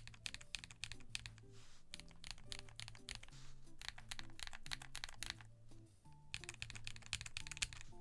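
Fast typing on a mechanical keyboard fitted with Zuoce Bubblegum linear switches: a dense run of keystroke clacks, pausing briefly about six seconds in, over background music with a steady bass line.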